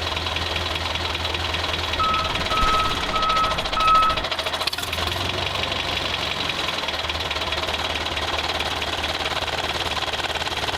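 A vehicle engine running steadily, with four short, evenly spaced reversing beeps about two to four seconds in.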